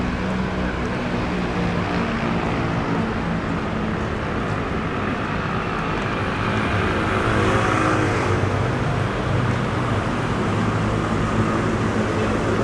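Road traffic: vehicle engines running steadily close by, with one vehicle passing and the traffic noise swelling, then easing, about two-thirds of the way through.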